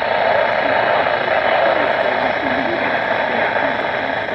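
NOAA Weather Radio broadcast received through heavy static: a steady hiss of radio noise, with a faint voice barely audible underneath it.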